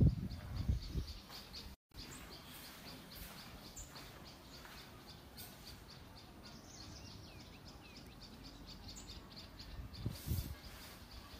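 Birds chirping, a quick steady run of high chirps with a few short sliding whistles midway. Low thumps come at the very start and again about ten seconds in.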